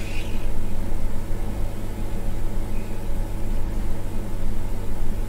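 Steady electrical hum from bench equipment, a low mains-type drone with a light hiss over it.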